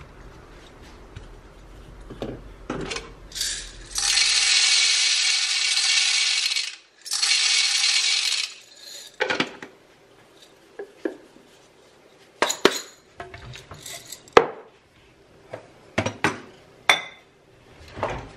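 Coffee grinder running, grinding espresso beans in two spells of about three seconds and a second and a half with a short break between. Afterwards a string of sharp clinks and knocks from the portafilter, glass jar and tamping tools being handled.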